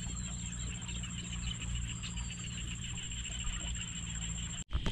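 Steady outdoor ambience of an insect chorus, a fast-pulsing trill with a thin high whine above it, over a low steady hum. A couple of short chirps sound around the middle. The sound cuts out abruptly for an instant near the end.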